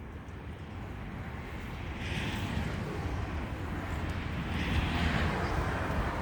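Strong wind gusting over the microphone: a constant low rumble with two stronger gusts, about two seconds in and again near five seconds.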